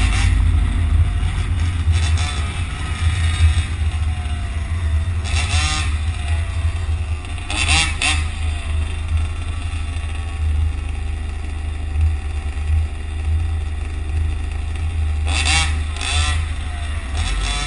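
Road traffic: a steady low rumble, with vehicle engines rising and falling in pitch as they rev or pass, about five seconds in, around eight seconds, and again near the end.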